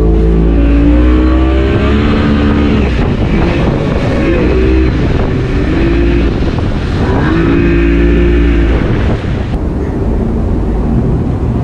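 Outboard motor on a small fiberglass fishing boat revving up and down in three surges as the throttle is worked to punch out through breaking surf, easing off near the end. The rush of water and a heavy low rumble sit underneath.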